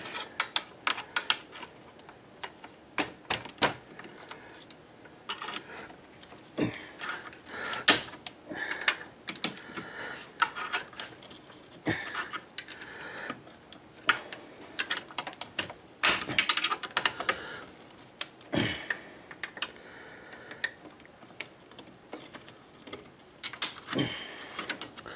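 Irregular metallic clicks and scrapes of a steel pick and a screwdriver prying at a notched snap ring in the aluminium bore of an air-conditioning receiver-drier, trying to work the ring out of its groove.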